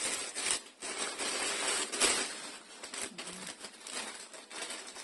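Plastic mailer bag and the shirts' clear plastic wrapping rustling and crinkling as they are torn open and handled, an irregular run of small crackles.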